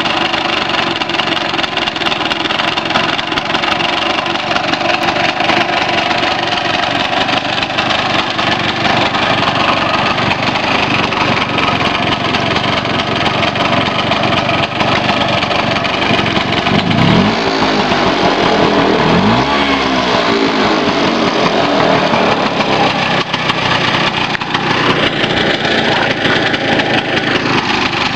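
Vespa GS VS1's two-stroke single-cylinder engine idling steadily, with the throttle blipped twice about two-thirds of the way through so the revs rise and fall back.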